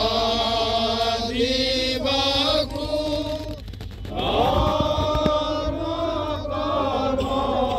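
Slow chant-like singing in long held notes, with a short break about four seconds in.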